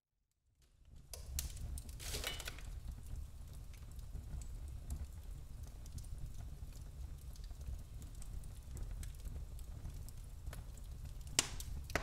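Burning firewood crackling, with scattered small pops over a low steady rumble. It fades in from silence at the start, with a louder crackle about two seconds in and a single sharp pop near the end.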